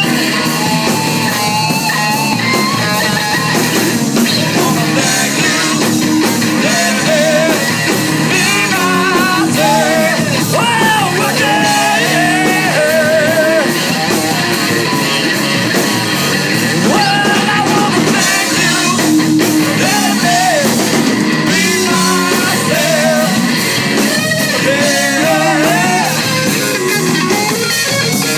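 A live rock band playing loud: electric guitar, bass guitar and drums, with a man singing over them.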